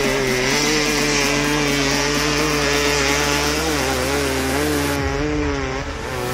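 Dirt bike engine revving hard and held high, its pitch wavering slightly, under load on a steep loose hill climb.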